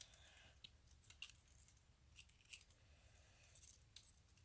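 Comb balisong trainer clicking and clattering as it is handled and flipped: faint, irregular clicks of its handles and comb knocking together.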